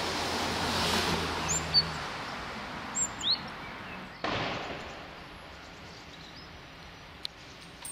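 Steady outdoor background noise with a few short, high bird chirps about two and three seconds in. A low hum stops about two seconds in, and there is a brief swell of noise about four seconds in.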